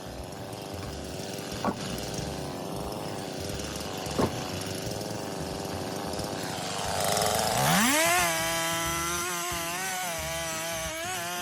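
Chainsaw engine running steadily, with two short sharp knocks. About two-thirds of the way in it revs up in a rising whine and holds at high speed, the pitch wavering slightly.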